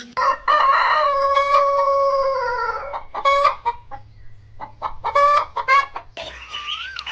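A rooster crows once, a long crow of about three seconds. Several short clucking calls follow. Near the end these give way to softer, higher duckling calls.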